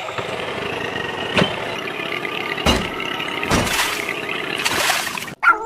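An engine running steadily, with a sharp knock about a second and a half in and a few short rushing noises later. It cuts off suddenly near the end.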